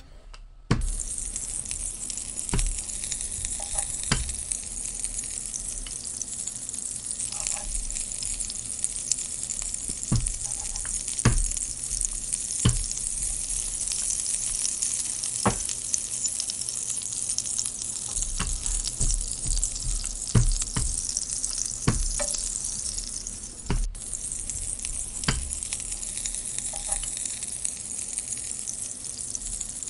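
Egg-dipped bread slices sizzling steadily in oil on a grill pan, with scattered sharp clicks of a fork against the pan as the slices are pressed and turned. The sizzle starts just under a second in.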